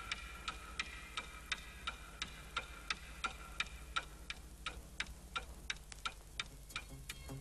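Steady clock-like ticking, about three ticks a second, over a held synth chord that fades away in the first few seconds.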